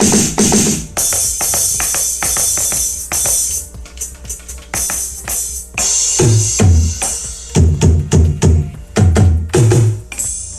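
AMW ED3 electronic drum kit played on its sound preset 14 through an amplified speaker cabinet: quick drum strokes under ringing cymbals for the first few seconds, then heavy low drum hits from about six seconds in.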